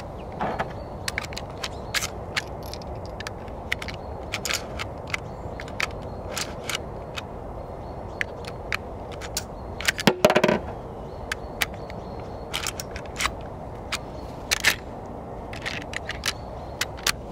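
Metallic clicks and clacks of 45-70 Government cartridges being pushed one after another through the spring-loaded side loading gate into the tubular magazine of a Marlin 1895 SBL lever-action rifle. A louder, heavier clatter comes about ten seconds in.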